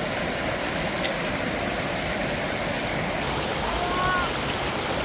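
Steady rushing noise of running water, with a faint held call from a voice briefly about four seconds in.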